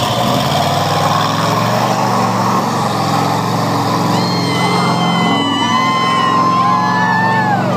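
Old-school lifted pickup mud truck's engine revving hard, coming up sharply at the start and held at high revs as the truck plows through a deep mud hole. High whistles ride over it in the second half.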